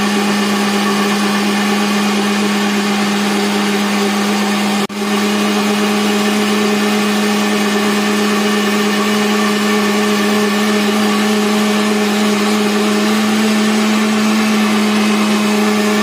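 BQ countertop jug blender running steadily on its smoothie program, churning a thick milk-and-fruit mixture: a constant motor hum that holds one pitch, with a momentary dip in loudness about five seconds in.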